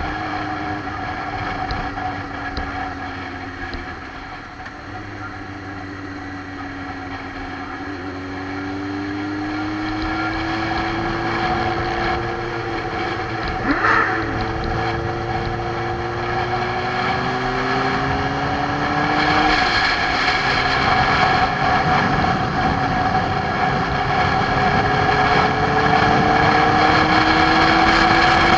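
Motorcycle engine running on the move, its pitch climbing slowly and dropping back at each gear change, with wind and road noise that grows louder as speed rises. A brief sharp noise sounds about halfway through.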